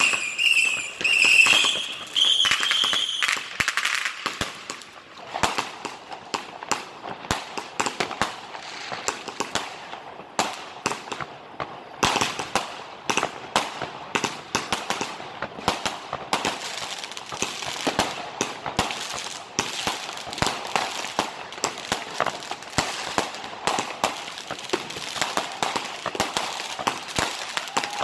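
Fireworks going off: a pulsing whistle in the first three seconds, then a dense, unbroken string of sharp cracks and bangs from firecrackers and bursting aerial shells.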